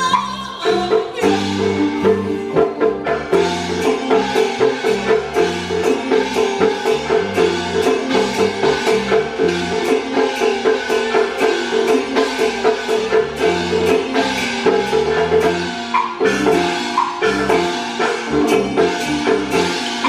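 Taiwanese opera (gezaixi) instrumental accompaniment between sung lines: a steady wood-block beat about three strokes a second under a repeating melodic line, with no singing.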